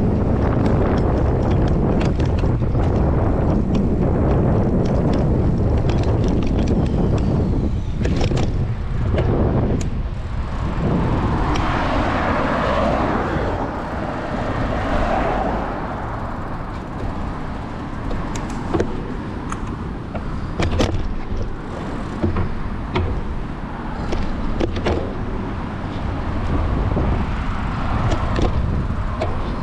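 Wind buffeting the microphone while riding a bicycle along a road, with road traffic. One vehicle swells and fades about eleven to sixteen seconds in, and sharp clicks come at scattered moments.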